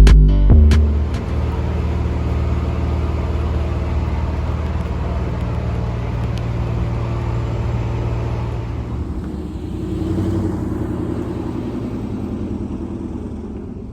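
A car running with a steady low rumble, its pitch shifting about nine seconds in; a last beat of electronic music ends in the first second.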